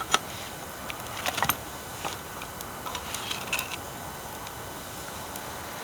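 Wood fire crackling: irregular sharp pops and snaps over a steady hiss, with a quick cluster of them about a second and a half in.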